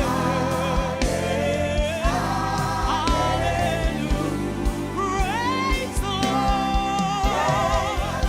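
Gospel worship song: a lead voice sings long, wavering notes over a band with steady bass notes and regular drum beats, with choir voices behind.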